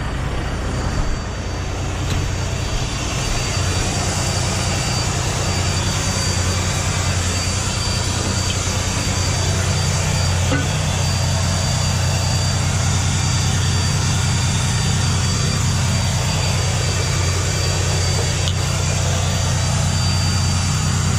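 Semi-truck diesel engine idling steadily, with a steady hiss over it that grows a little louder a few seconds in.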